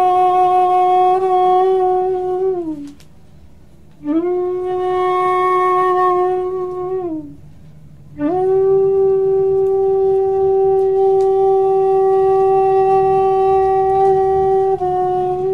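Music: a wind instrument holds three long notes on the same pitch, each sliding down at its end, over a low steady drone. The third note starts about eight seconds in and is the longest.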